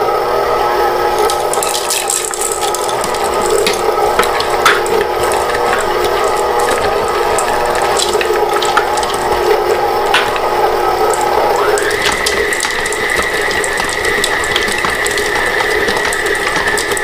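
Electric stand mixer running on low, its paddle turning through stiff cookie dough as pecans and chips are mixed in, with scattered light clicks over the steady motor whine. About twelve seconds in, the whine glides up to a higher pitch and holds there.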